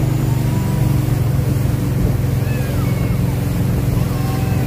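Motorboat engine running steadily at towing speed, a constant drone, over the rush of the churning wake behind the stern.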